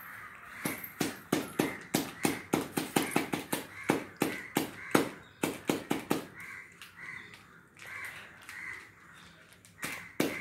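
Wooden spatula knocking against the side of a brass pot while thick sweet pongal is stirred, about three knocks a second for some five seconds, then only a few.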